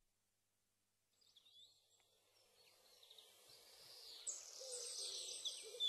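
Birds calling in high, short chirps and falling notes over faint outdoor background noise. The sound fades in from silence about a second in and grows louder.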